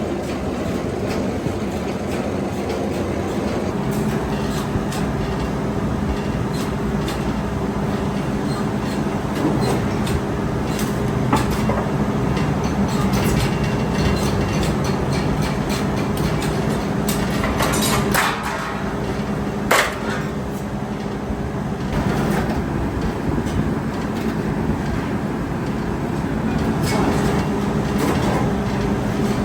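Metalworking machinery running with a steady electric-motor hum, small metallic clicks and clatter, and two sharper metal knocks about two-thirds of the way through.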